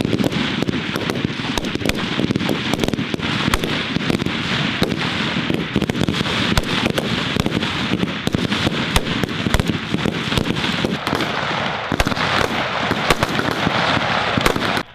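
Many 5.56 mm service rifles firing at once on a rifle range: a dense, continuous run of overlapping shots, with no break between reports. It cuts off suddenly just before the end.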